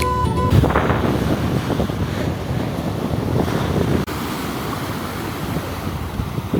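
Rough surf breaking and washing up the beach, with strong wind buffeting the microphone. Background music ends about half a second in.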